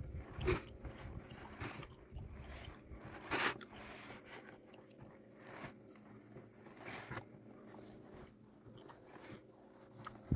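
Snow being shovelled: irregular crunching and scraping strokes of a shovel in packed snow, the loudest about half a second and three and a half seconds in.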